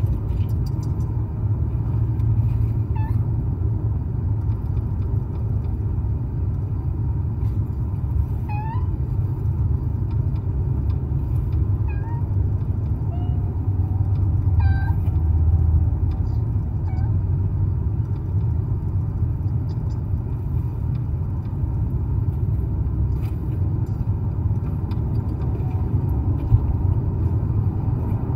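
Steady low rumble of wind and handling noise on a camera microphone swinging from a walker's wrist. A few faint, short rising calls from an animal sound through the first half.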